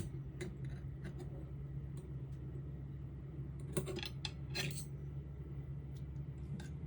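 Light clinks and taps of cutlery against dishes while eating, scattered through, with a busier cluster about four seconds in, over a steady low hum.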